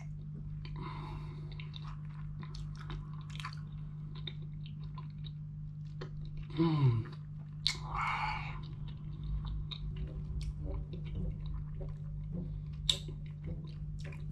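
Raw honeycomb being chewed close to the microphone: small wet smacks and clicks of honey and beeswax comb in the mouth. About halfway through comes a short 'mmm' that falls in pitch.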